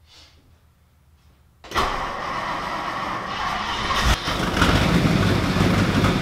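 The 1960 Lincoln Premiere's 430 cubic-inch big-block V8 starts about two seconds in after 35 years of sitting, then keeps running loudly and gets louder a couple of seconds later. The exhaust pipes have many holes in them.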